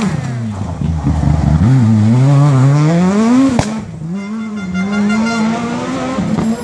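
Renault Clio rally car's engine revving hard through a hairpin. The pitch drops, then climbs steadily under acceleration. A sharp crack comes about three and a half seconds in, after which the note falls back and holds steady as the car pulls away.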